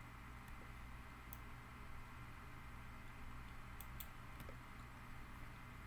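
A few faint, scattered computer mouse clicks over a steady background hum.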